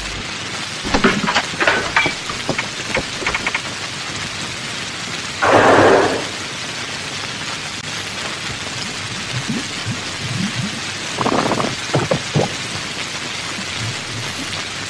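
Heavy rain falling steadily, with crackles of thunder; the loudest, a short sharp clap, comes about five and a half seconds in.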